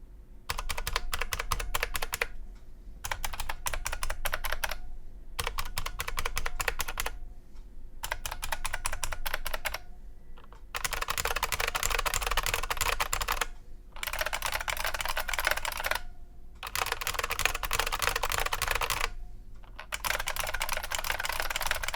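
Typing on IBM Model M122 terminal keyboards with buckling-spring switches, in eight bursts of about two seconds each with short pauses between. The compact 'Battlecruiser' M122 and the larger M122 are heard in comparison, and the Battlecruiser is considerably bassier. The first half has crisp separate key clicks and the second half a denser rattle.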